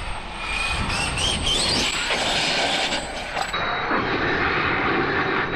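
Losi 5ive TE 3.0's electric motor and drivetrain whining as the truck accelerates, rising in pitch over about a second and a half. This is followed by a steady rush of tyres and drivetrain running at speed.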